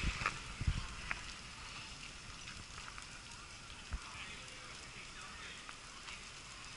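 A distant bus fire: a steady hiss with faint scattered crackles, the sound of a city bus burning down the street. A few low thumps come in the first second and one about four seconds in, as the action camera is moved.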